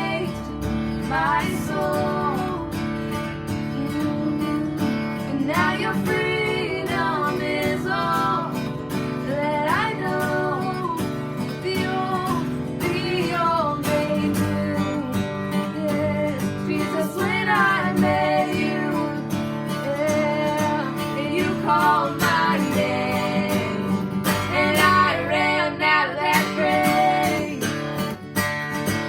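Worship song playing: a singer over strummed acoustic guitar.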